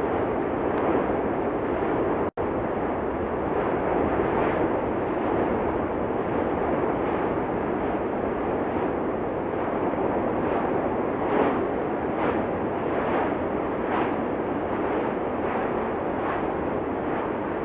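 Continuous heavy rushing noise of the erupting Cumbre Vieja volcano, with short blasts recurring roughly once a second in the second half. The audio cuts out for an instant about two seconds in.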